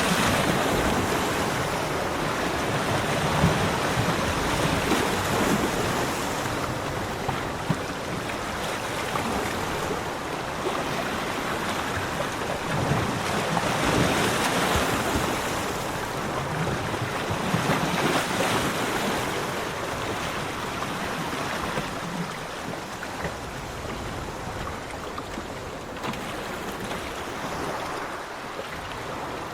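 Sea waves breaking and washing onto a beach: a continuous rushing surf that swells and fades every few seconds.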